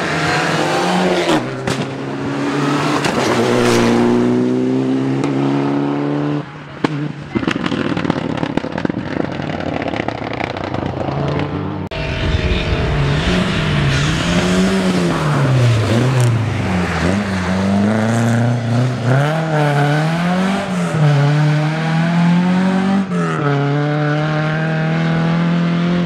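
Rally cars at full throttle. A Mitsubishi Lancer Evolution's turbocharged four-cylinder revs up steadily as it accelerates out of a corner. After a cut, a second rally car's engine rises and falls again and again through gear changes and lifts, with wind rumble on the microphone at first.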